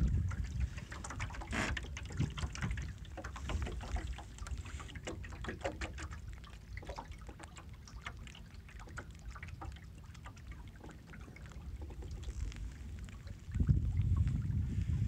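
Water lapping and splashing against the wooden hull of a small sailboat under way, a quick run of small trickling splashes. Wind buffets the microphone at the start and again from near the end.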